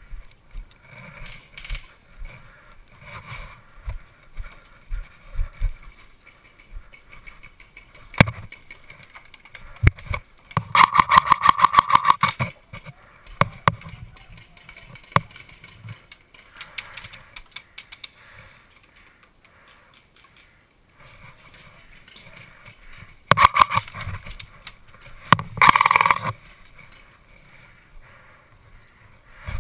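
Airsoft electric guns firing: single shots, then a rapid full-auto burst of about two seconds around 11 s in, and two shorter bursts near the end, with thuds of movement in the first few seconds.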